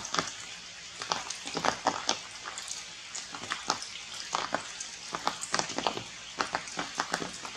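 Raindrops dripping through the tree canopy onto leaves: irregular sharp ticks, several a second, over a light hiss.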